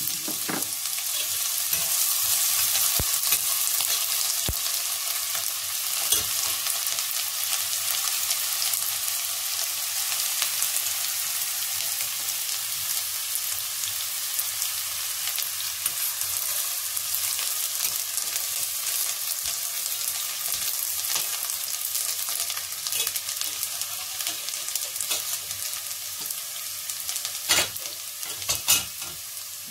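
Chopped onions frying in oil in a stainless steel pot: a steady sizzle full of fine crackles. Near the end come two sharper clicks.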